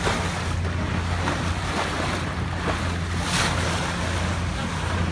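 Fast boat under way: a steady low engine drone under the rush of water along the hull and wind on the microphone, with one louder rush of noise about three seconds in.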